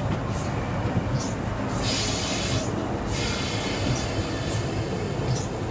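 LNER B12 4-6-0 steam locomotive on the move, heard from its footplate: a steady rumble of the engine and wheels on the rails, with a burst of hissing about two seconds in.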